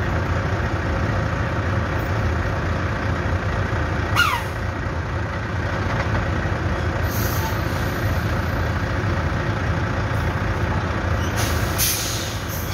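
Volvo FH 440 semi-truck running at a steady low idle. There is a short squeak and knock about four seconds in. Short hisses of air from the truck's air system come about seven seconds in and again near the end.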